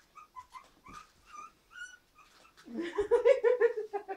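Three-week-old puppies squeaking in short, high whimpers, several in quick succession. This is followed by a much louder, pulsing voice-like sound for the last second and a half.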